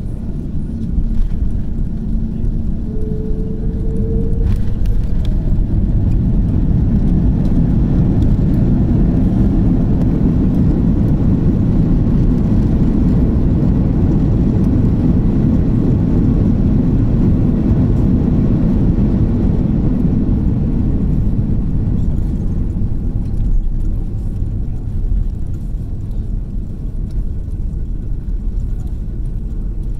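Inside the cabin of a Hawaiian Airlines Airbus A330 on landing: touchdown about a second in, then a loud, steady low rumble from the landing roll with the ground spoilers up. The rumble eases off in the last several seconds as the jet slows.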